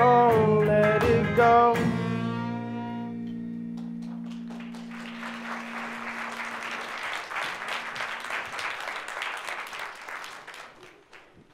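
A live band's final note and chord of a song ring out and die away over the first few seconds, followed by audience applause that swells and then fades out near the end.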